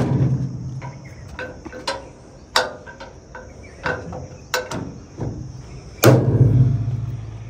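Sheet-steel tailgate of a jeep trailer being worked by hand: a metal bang at the start, a few sharp latch clicks, then a louder clang about six seconds in that rings briefly as the gate is shut and latched.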